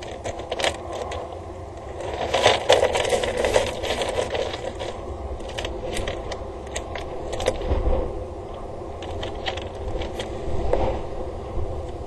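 Irregular clicks, taps and scrapes, thickest about two to four seconds in, over a steady low rumble.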